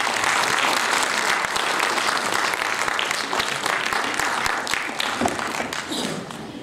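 Audience applauding, a dense steady clapping that starts at once and fades away near the end.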